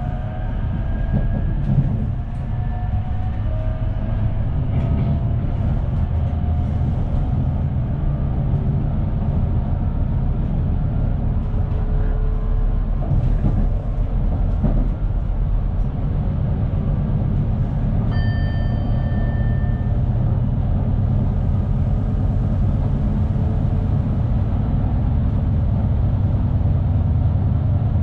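NS Sprinter New Generation (SNG) electric train running along the track, heard from the driver's cab as a steady low rumble, with faint rising whines in the first several seconds. About two-thirds of the way through, a short electronic beep sounds for about two seconds.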